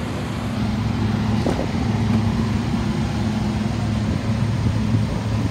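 2002 Dodge Ram 2500's 5.9-litre gas V8 idling steadily and smoothly.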